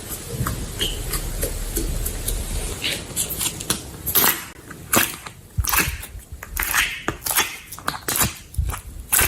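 Slime being handled: irregular sticky clicks and squelches, coming quicker and sharper in the second half.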